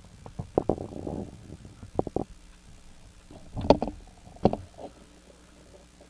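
Scattered sharp knocks and bumps over a low rumble, heaviest in the first second and again around the middle, fading to a faint steady hum near the end.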